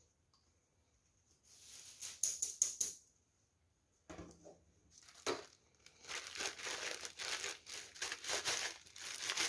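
Clear plastic zip bag crinkling, with dried bush-chrysanthemum seed heads rustling inside, as gloved hands handle it. It comes in a short burst at first, then turns near-continuous in the second half and grows louder.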